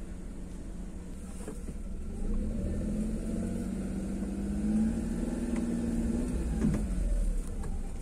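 Car engine and road noise heard from inside the cabin as the car drives slowly. From about two seconds in, the engine note grows louder and climbs in pitch, then drops away near the end.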